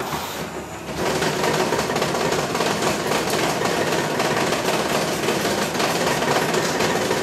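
Baker's Pacers horse-racing payout machine's motor-driven race mechanism starting up and running with a steady, dense mechanical clatter of fine rapid ticks, getting louder about a second in.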